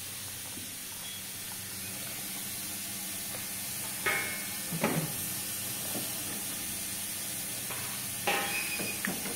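Steady hiss and low hum from a PET blow-moulding machine, with short metallic clanks that ring briefly about four and eight seconds in, as the preform holders on the heating oven's carousel are handled.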